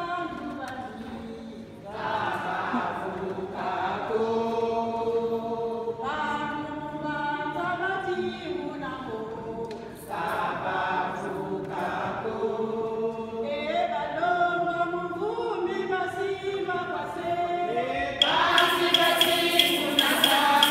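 Congolese kilombo women's choir singing a hymn unaccompanied, in phrases of about two seconds, led by a woman on a microphone. Near the end the singing grows louder and a rhythmic rattle joins in.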